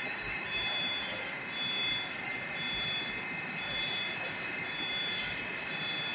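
Moscow Metro 81-765 "Moskva" train standing at the platform with its doors open: its on-board equipment gives a steady high whine, and a short high beep repeats about once a second.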